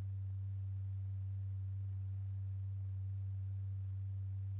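Steady low electronic tone, the note that drives a stretched-paper diaphragm strewn with lycopodium powder, holding one pitch and level, with a fainter tone an octave above it.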